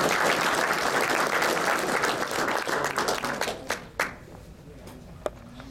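Audience applauding, dense at first and dying away about three to four seconds in to a few scattered last claps.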